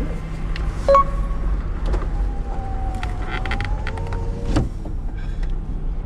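A power window motor winding a window shut, a whine lasting a couple of seconds that ends in a thump as the glass seats, over the steady low running of the camper's engine. A short beep sounds about a second in.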